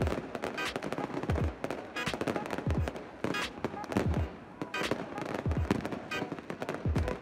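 Fireworks bursting overhead, with many sharp bangs and crackling. A crowd's voices and music with a deep beat about every second and a half run underneath.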